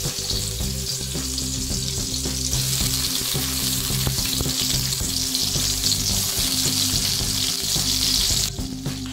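Onion, garlic and chopped tomato frying in hot oil in a wok, a steady sizzle. The sizzle grows louder about two and a half seconds in and cuts off suddenly near the end.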